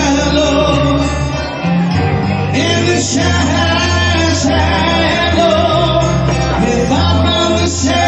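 A female and a male vocalist singing a duet live into microphones over a backing track, holding long sung notes.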